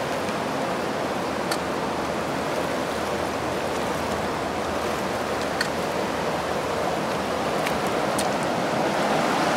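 Steady rush of flowing river water, with a few faint clicks over it.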